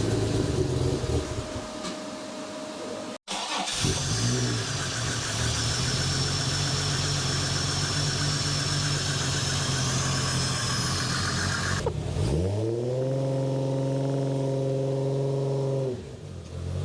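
Holden Ecotec 3.8 L naturally aspirated V6 running rough on an untuned first start-up. The sound cuts out abruptly about three seconds in, the engine then runs steadily, and near the end, after another cut, it revs up, holds at higher revs for a few seconds, then drops back.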